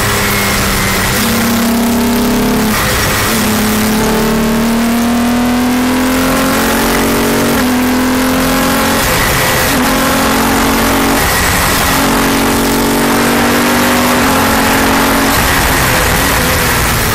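Palmer Jaguar JP-LM race car heard from on board under hard acceleration: the engine note climbs repeatedly and drops back at each gear change, with steady wind and road noise underneath.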